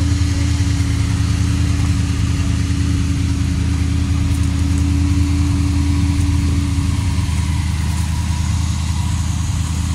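1984 GMC 1500 pickup's engine idling steadily.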